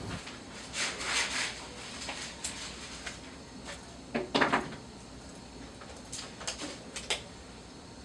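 Light clicks and short scrapes of metal dental instruments as a reverse-threaded screw extractor is worked on a stripped implant screw. The noises are scattered, with a stronger scrape about four and a half seconds in and a quick run of clicks near the end.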